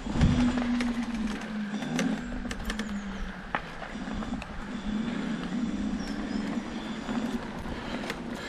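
Homemade all-wheel-drive mobility scooter's electric drive running steadily as it rides along, a steady motor hum whose pitch dips briefly about two seconds in. Scattered ticks and knocks from the wheels on the trail surface run through it, with a low thump just after the start.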